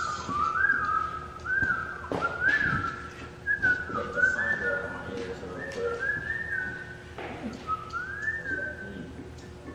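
A person whistling a tune, short rising and falling phrases, with a few light knocks of parts being handled.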